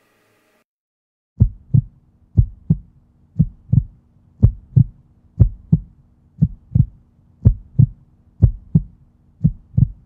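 Heartbeat-style sound effect: a double thump, lub-dub, repeating about once a second over a faint low steady hum, starting about a second and a half in.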